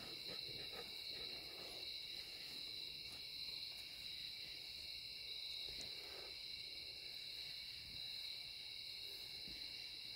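A steady chorus of night insects trilling high and unbroken, with a few faint soft knocks and rustles.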